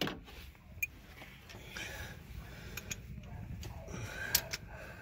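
A few light, scattered clicks of a ratchet extension and spark plug socket being fitted and worked by hand onto a spark plug, the loudest near the end.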